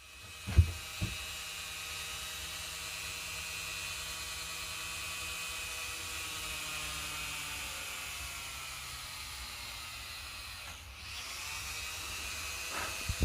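Small high-speed electric sanding tool switching on and running with a steady whine, with knocks about half a second and a second in. Near the end its pitch dips and recovers as it bogs briefly under load, followed by a few more knocks.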